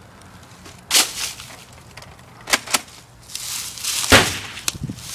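Nerf blasters firing foam darts: a handful of sharp pops. There is one about a second in, a quick pair near the middle, and the loudest just after four seconds.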